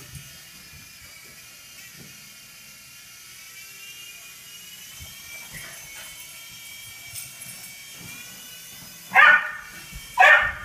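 A toy remote-control helicopter's small electric motor whines steadily, rising slightly in pitch. Near the end a Welsh terrier barks twice, about a second apart, loudly.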